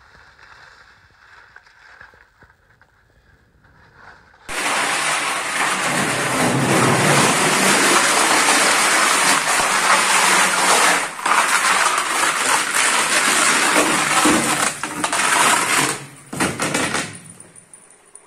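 Skis sliding and scraping over the hard, glassy ice floor of a glacier cave, a loud hiss that starts suddenly about four seconds in and drops away near the end. Before it, only faint quiet ambience.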